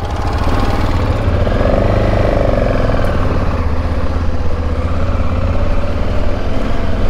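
Adventure motorcycle engine running as the bike pulls away and rides slowly over rough grass. The engine pitch climbs and eases back about two seconds in.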